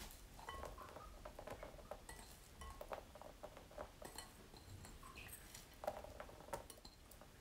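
Fried onion pieces being scattered onto buttered dough: faint, irregular soft pats and small clicks, with a few light clinks.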